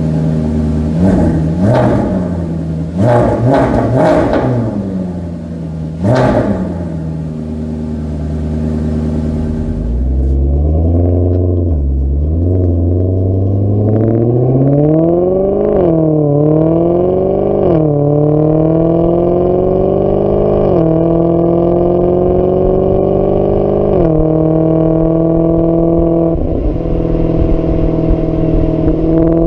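Maserati GranTurismo engine revved in about five sharp blips that rise and fall quickly. It then pulls under acceleration, its note climbing and dropping back suddenly at each of about four upshifts.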